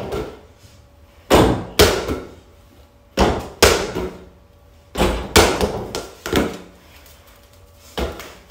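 Over-the-door mini basketball hoop being dunked on again and again. The rim and backboard knock sharply against the door, about eight times, mostly in pairs every two seconds or so.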